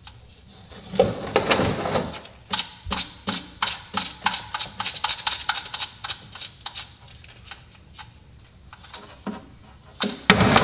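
A ratchet wrench clicking in quick, irregular runs as the oil drain plug is backed out of the oil pan. A short, louder burst of noise comes near the end.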